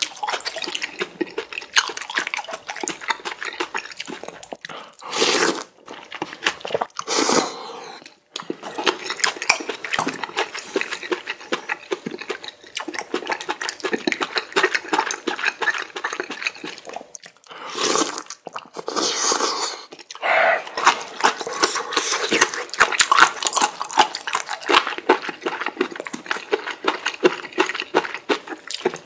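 Close-miked eating sounds from a bowl of spicy ramen noodles in broth: continuous wet chewing and mouth clicks, with several louder, longer slurps, about four of them.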